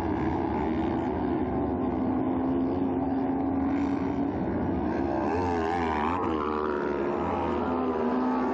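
Several kart-cross buggies' motorcycle engines racing together, several engine notes overlapping. Their pitch holds fairly steady for the first few seconds, then from about halfway through rises and falls repeatedly as the drivers work the throttle and gears.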